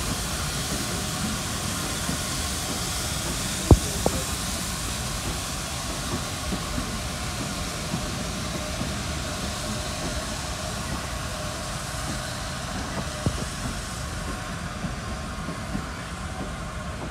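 Steam-hauled passenger train pulling out: coaches rolling along the rails with a steady rumble and a few sharp knocks, while the locomotive's steam hiss fades as it draws away.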